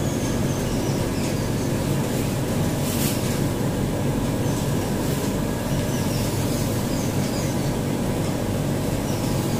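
Dry-erase marker squeaking faintly in short strokes on a whiteboard as a diagram is drawn, over a steady low rumbling background noise.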